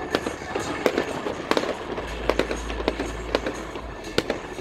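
Fireworks going off: an irregular run of sharp pops and bangs, several a second, from low crackling bursts.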